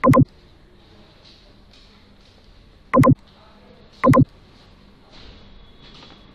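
Three short, loud beeps: one at the start, one about three seconds in and a third about a second later, over faint background hiss.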